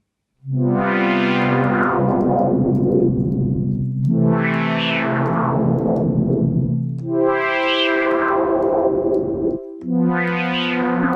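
Synth pad on a Dave Smith Instruments Tempest playing four long chords in turn. Each chord swells brighter and then turns duller again as the filter is swept open and closed.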